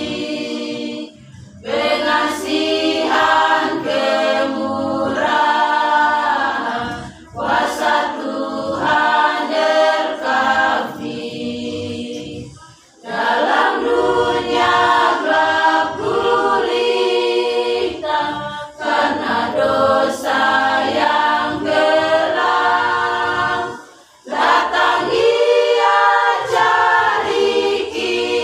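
Women's church choir singing unaccompanied, phrase after phrase, with brief breaks between the phrases.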